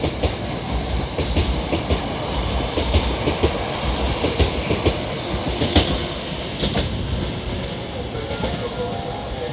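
Hankyu 9000 series electric train pulling out and rolling past, with a steady rumble and many sharp wheel clicks over the rail joints, easing off a little near the end.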